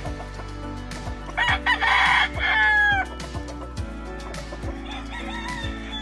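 Gamefowl rooster crowing loudly once, starting about a second and a half in, the call ending in a falling tail; a second, fainter crow comes near the end. Background music with a steady bass beat plays underneath.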